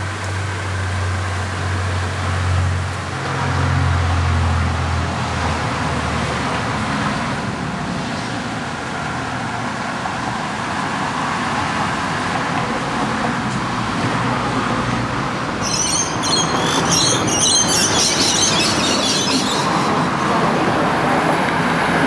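Steady roar of urban road traffic, with a low engine hum in the first five seconds or so. About two-thirds of the way through, a burst of high, rapidly fluttering sound lasts about four seconds.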